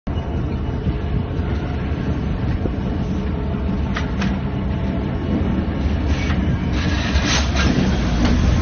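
Passenger train running slowly, heard from a coach through an open droplight window: a steady low rumble of the running gear, with a few sharp clicks and knocks from the wheels about four seconds in and again near the end.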